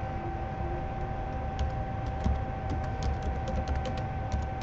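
Computer keyboard keys being typed as a password is entered: a quick run of light clicks starting about a second and a half in, over a steady faint background hum.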